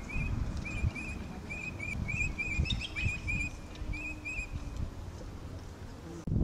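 A small bird chirping over and over in short, quick pairs of notes at one steady pitch, over a low rumbling noise. The sound cuts off suddenly near the end.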